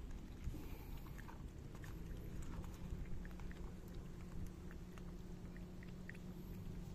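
A cat lapping milk from a shallow dish: faint, irregular small wet clicks of the tongue. A low steady hum sets in about two seconds in.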